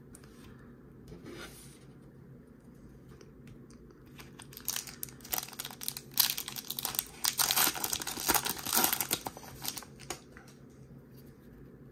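Plastic wrapper of a Topps baseball card pack crinkling and tearing as it is opened, a dense run of crackles starting about four seconds in and stopping about ten seconds in.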